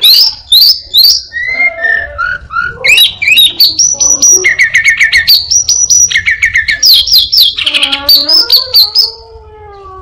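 Caged Anis binbin singing a loud, varied mimicking song: quick series of repeated chirps and whistled notes in changing phrases, then, from about three-quarters of the way in, a lower, quieter drawn-out mewing note that falls in pitch.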